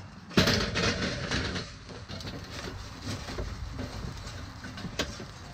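Lit charcoal briquettes poured from a metal chimney starter into a kettle grill, clattering onto the charcoal grate in a loud burst about half a second in. Scattered small clicks follow, with one sharper click near the end.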